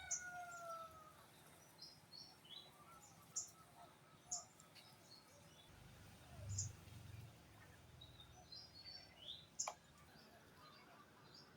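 A rooster's crow trails off in the first second. After that come faint, scattered short chirps of small birds over quiet rural background.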